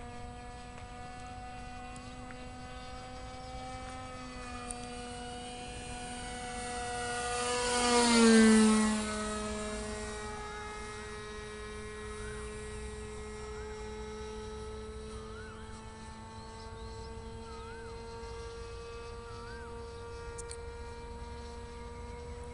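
The .46-size engine of a Fellowship radio-controlled model airplane in flight: a steady high-pitched drone that grows louder to a close fly-by about eight seconds in, its pitch dropping as the plane passes, then carries on steadily at a lower pitch as it flies away.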